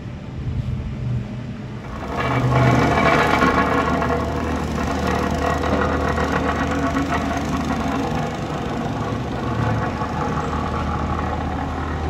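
Engine of heavy construction machinery running steadily, a low hum with mechanical clatter above it, getting louder about two seconds in.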